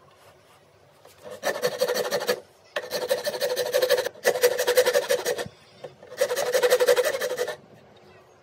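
A hand file rasping across a teak walking-stick handle clamped in a bench vise, in four strokes of about a second each with short pauses between.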